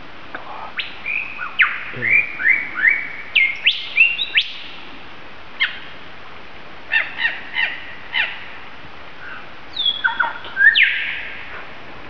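Superb lyrebird singing a varied run of mimicked calls of other birds: sharp whistles, quick sweeping notes and short clusters of calls, with a brief lull in the middle and a louder call near the end.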